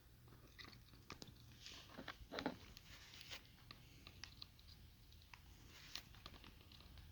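Faint handling sounds of a headphone hinge repair: scattered small clicks and crackles of hands working the plastic headband parts, with one louder short crunch about two and a half seconds in.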